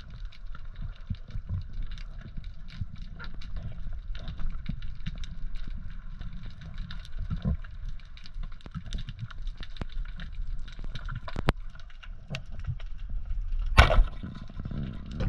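Underwater sound picked up by a diver's camera: a low rumble with a constant crackle of small clicks. Near the end a speargun fires with one loud, sharp crack.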